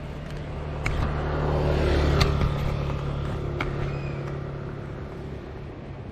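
Royal Enfield Continental GT 650's 648 cc parallel-twin engine running at steady revs through its stock exhaust, recorded on the moving bike. A rushing swell of noise builds to a peak about two seconds in and fades away, with a few sharp clicks.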